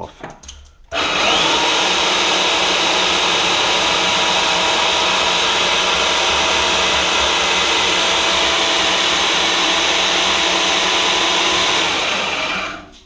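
A small bench band saw is switched on about a second in and runs steadily while trimming the bottom ring off a bump stop. It is switched off near the end and winds down.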